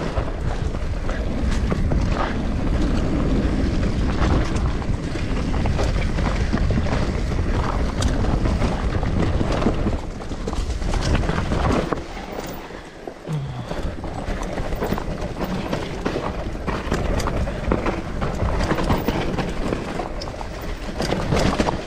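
Mountain bike ridden fast down a dirt singletrack: tyres rumbling over the ground and the bike clattering over bumps, with wind buffeting the microphone. It goes quieter for about two seconds around the middle, then picks up again.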